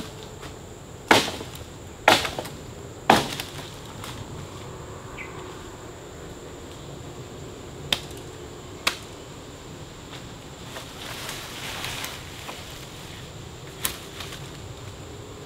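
A blade chopping into a sapling's trunk: three sharp chops about a second apart, then two lighter knocks a second apart and one more near the end, with a stretch of rustling leaves and brush in between. A steady high insect drone runs underneath.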